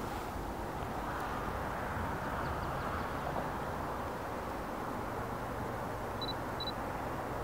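Steady outdoor background noise, a low rumble and hiss, with two short high chirps near the end.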